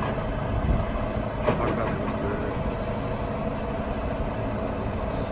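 Diesel engine of a new Peterbilt semi truck running at idle, a steady low rumble, with a brief knock about one and a half seconds in.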